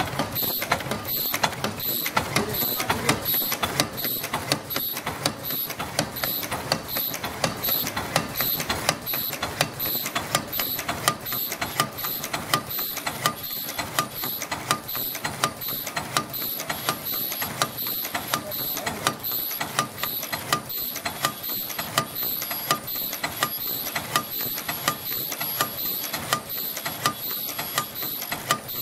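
High-speed face mask earloop welding machine with automatic feeder running continuously: a dense mechanical clatter of clicks from the feed and transfer mechanism, with a high-pitched pulse repeating evenly about one and a half times a second as each mask cycles through.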